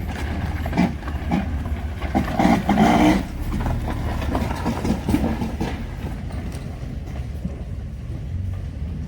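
Off-road vehicle engine running at low revs on a trail, a steady low rumble with irregular rattling. There is a louder burst about two and a half to three seconds in.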